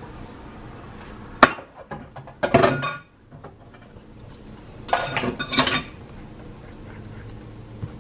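Kitchen utensils knocking and scraping against a stainless steel pot while cornbread batter is stirred: one sharp clink about a second and a half in, then two short bursts of clattering and scraping around three and five seconds in.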